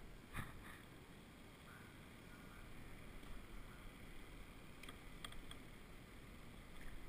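Handling knocks on a plastic fishing kayak: one sharp knock about half a second in, then a few light clicks around five seconds in, over a quiet steady background.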